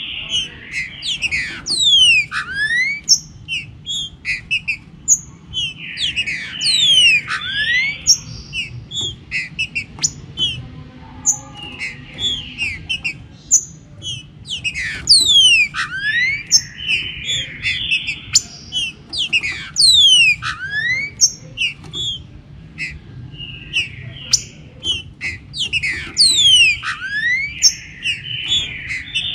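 Green-winged saltator (trinca-ferro) singing: loud phrases of quick sweeping whistled notes, repeated every few seconds, over a low steady hum.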